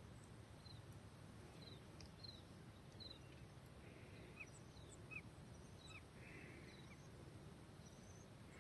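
Near silence with faint, short, high chirps from small birds, about two a second, over a low background hum.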